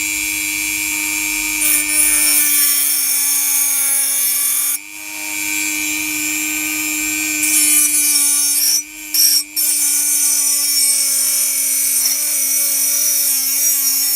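Dremel 4000 rotary tool with a cutting saw blade running at about 20,000 rpm and cutting: a steady high whine under a grinding hiss. The sound drops briefly about five seconds in and twice around nine seconds in, then carries on.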